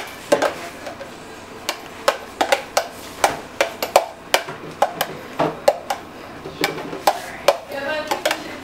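A spoon tapping and scraping against a plastic container and the rim of a frying pan as chopped tomatoes and green onions are knocked out into the pan. The sharp taps come about two to three a second.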